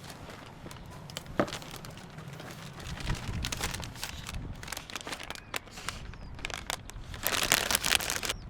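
Crinkly packaging being handled and crumpled, a run of sharp crackles and rustles that grows busiest and loudest near the end, as if a snack wrapper is being opened.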